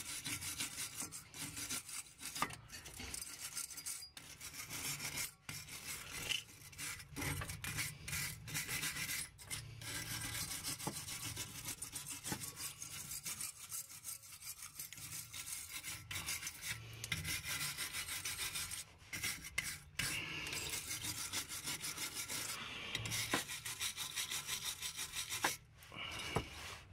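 Steel wire brush scrubbing rust off the bolts of an exhaust catalytic converter flange in quick back-and-forth strokes, with a few brief pauses. This is the rusted bolts being cleaned before they are undone.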